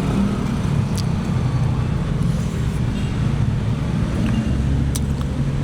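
Car engine idling: a steady low rumble, with two brief clicks about one second and five seconds in.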